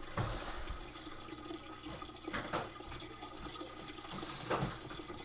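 A steady hiss of running water, with a few faint knocks.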